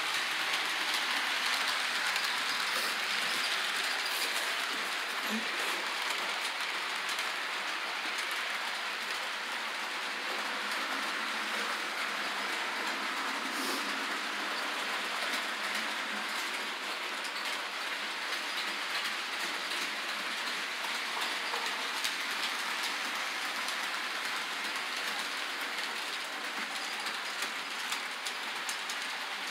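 Model train running on layout track: a steady whirring run with light, rapid clicking of the wheels over the rail joints, slowly getting quieter as it moves off.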